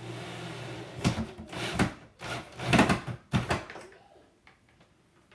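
Cordless drill running briefly as it drives a screw into the hinge, then a few loud, irregular wooden knocks and clunks as the cupboard door and hinge are handled.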